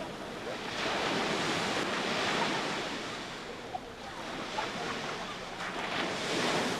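Waves breaking on a sandy beach: surf washing in twice, swelling and falling back.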